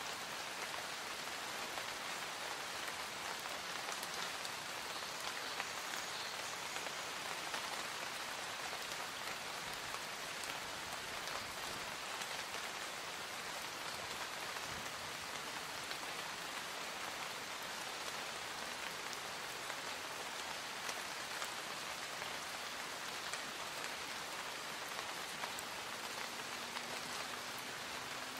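Light rain falling in a forest: a steady, even hiss of drops with scattered single drop ticks.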